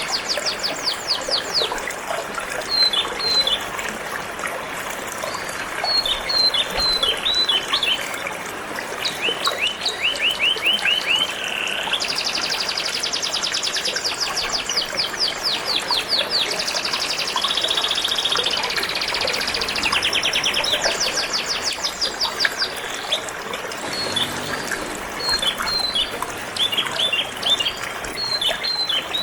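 Domestic canary singing in long, fast trills of rapidly repeated high notes, changing from one trill to the next, over a steady rush of flowing water.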